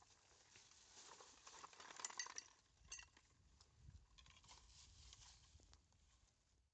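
Faint rustling with a few light clicks and clinks, fading away near the end.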